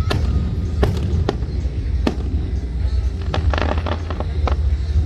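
Fireworks going off: several sharp bangs at irregular intervals, roughly a second apart, and a quick run of crackling pops about three and a half seconds in, over a steady low rumble.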